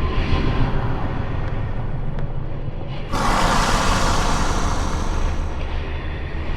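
Dark horror ambience: a steady low rumble, joined about three seconds in by a sudden loud hissing wash of noise that holds to near the end.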